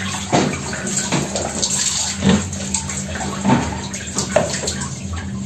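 Water running steadily from a bathroom tap into a plastic basin, with a few brief splashes.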